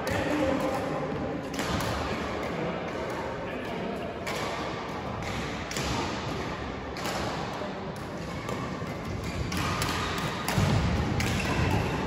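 Badminton being played in an indoor sports hall: scattered thuds of shoes on the court and racket hits, echoing in the hall, with voices murmuring in the background.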